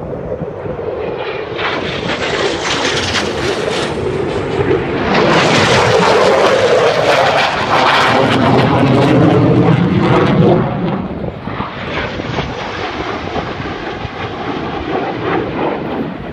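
Jet noise from F-16 fighter jets flying past at speed. It builds, is loudest from about five to ten seconds in with a sweeping, shifting tone as the jets go by, and drops off sharply near the eleventh second. It then carries on at a lower level as the jets move away.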